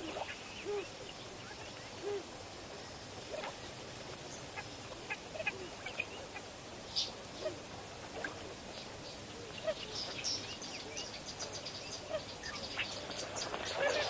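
Waterbirds calling at a shallow pan: a few short low calls early on and scattered higher chirps and twitters that grow busier in the second half, over a steady hiss.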